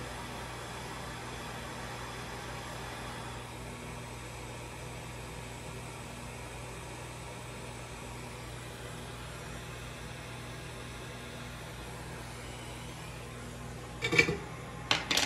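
Hot air rework station blowing steadily on a small capacitor to desolder it from a PS5 motherboard: an even rushing hiss over a faint hum, easing slightly after about three and a half seconds. A few sharp knocks come near the end.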